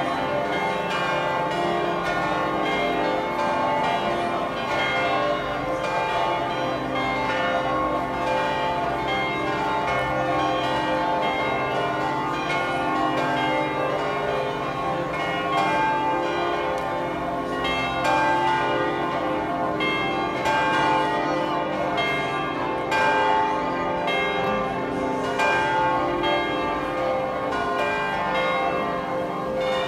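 Many tower bells ringing at once at different pitches, their strikes overlapping into a continuous peal.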